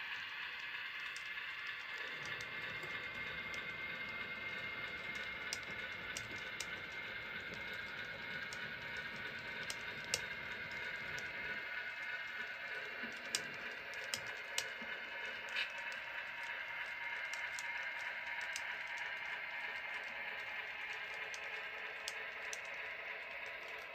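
Model freight cars rolling along the track: a faint steady running noise with scattered small clicks from the wheels, a few sharper ones between about ten and sixteen seconds in.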